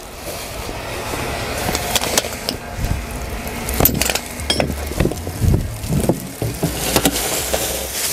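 Metal clinks and knocks from a chip trailer's rear door latches being worked, over a truck engine running steadily, with wood chips spilling out of the back.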